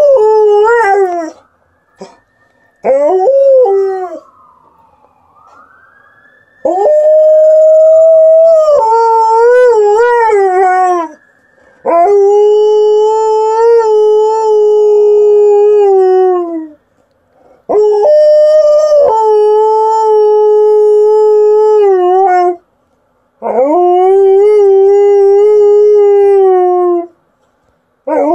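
Alaskan Malamute howling: a series of about six long, steady howls of a few seconds each, separated by short pauses. Several of them waver and slide down in pitch at the end.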